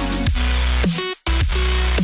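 Background electronic music with a heavy bass line and notes that slide down in pitch. It cuts out briefly a little over a second in.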